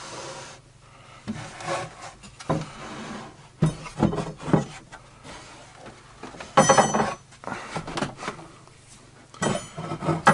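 Plywood parts rubbing, scraping and knocking as a wooden sled is slid and pushed into its slot, with a louder squeaky scrape about six and a half seconds in.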